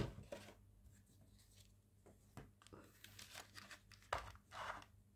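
Faint handling of a clear rigid plastic packaging case: scattered light clicks and taps of the plastic, with a couple of louder rustles about four seconds in.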